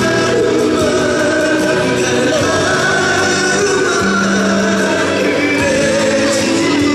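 Live concert music: a male solo singer with instrumental accompaniment, holding sustained notes.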